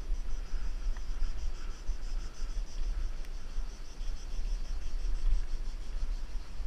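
Low rumble of wind and vibration on the camera microphone of a mountain bike rolling down a dirt trail, under a steady, pulsing high-pitched insect chorus.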